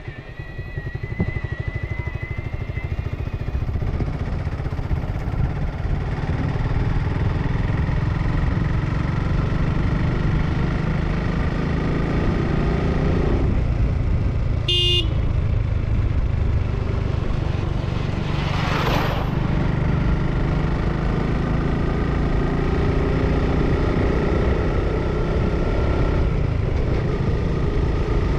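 Motorcycle engine running on the move, picking up speed over the first few seconds and then cruising steadily. A short horn beep sounds about halfway through.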